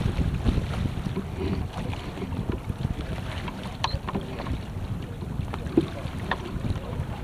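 Wind buffeting the microphone on a sailboat under way, with water rushing past the hull and a few light knocks and clicks from the deck.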